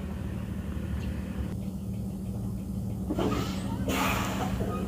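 Truck engine idling steadily, a low hum. A brief rush of noise comes about three seconds in.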